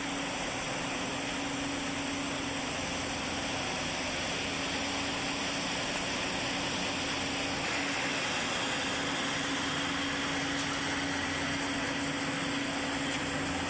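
Steady mechanical drone with hiss, shifting slightly in tone about eight seconds in.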